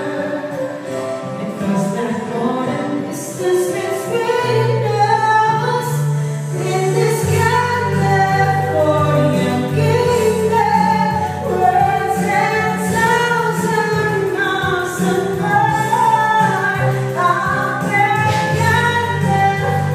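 Two women singing a pop song into microphones, amplified, over electronic keyboard backing with a steady beat; a bass line comes in about five seconds in and fills out about two seconds later.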